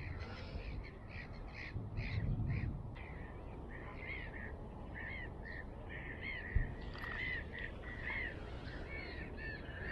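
A bird calling in a long run of short notes that rise and fall, about two to three a second.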